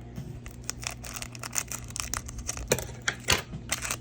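Plastic card packaging being handled: irregular sharp clicks and crackles, with two louder snaps near the end.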